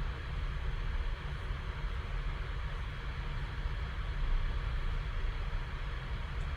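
Steady low hum with a faint even hiss, like an air conditioner or other room background noise, with no distinct handling sounds.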